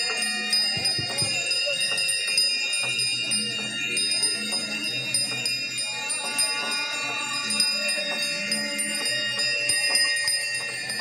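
Many metal bells and chimes ringing continuously, struck again and again, over a low hum that comes and goes.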